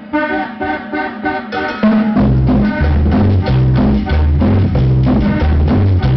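Accordion cumbia playing over a sonidero's sound system. It opens with a bare accordion intro, and about two seconds in the bass and drums come in and the full band carries on with a steady beat, noticeably louder.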